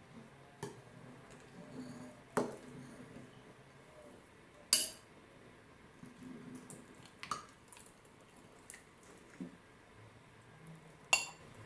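Metal knife and spoon clinking against a glass bowl while cutting and scooping set strawberry jam: about five sharp, scattered clinks, the loudest about five seconds in.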